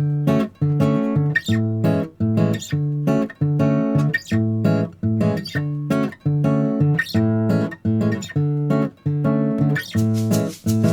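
Background music: acoustic guitar strumming chords in a steady rhythm, about two strums a second, with quicker, brighter strums near the end.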